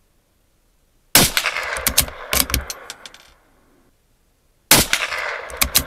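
Two .22LR rifle shots from a Tikka T1X firing Remington Yellow Jacket hypervelocity rounds, about three and a half seconds apart, one about a second in and one near the end. Each sharp crack is followed by a short run of clicks and rings on for a couple of seconds.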